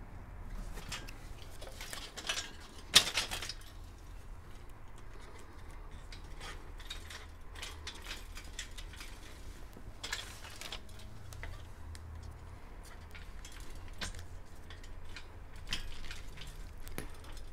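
Parts of a Craftright folding workbench being handled and fitted during assembly: scattered light clicks and clanks, with a sharper knock about three seconds in and a short clatter about ten seconds in.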